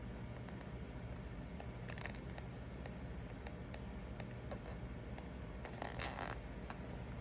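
Fingertips rubbing and pressing a paper card down onto a journal page: small scratchy rubs, a brief one about two seconds in and a louder one around six seconds in, with light ticks over a low steady hum.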